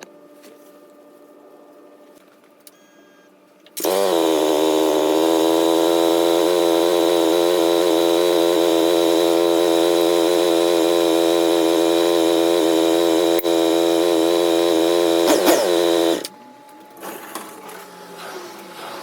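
Suzuki Gixxer 150's single-cylinder four-stroke engine starting up after its oil change. It catches suddenly, settles into a steady idle, is blipped briefly once near the end, then cuts off.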